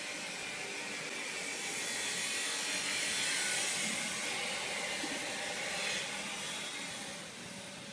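A steady high hiss that swells in the middle and eases off near the end.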